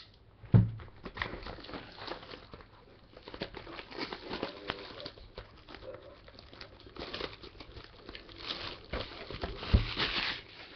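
Plastic shrink-wrap being torn and crinkled off a trading-card box by hand, a dense crackling that gets busier and louder near the end. A single knock comes about half a second in.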